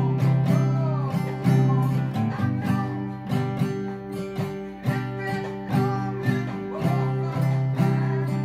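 Steel-string acoustic guitar strummed with a nickel coin used as a pick, playing chords in a steady rhythm.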